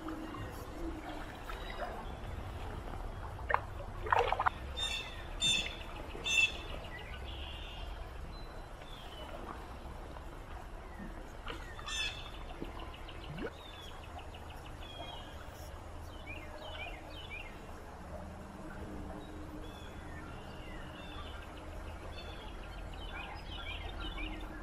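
Flowing stream water, with a few splashes about four to six seconds in and small birds chirping and singing through the second half.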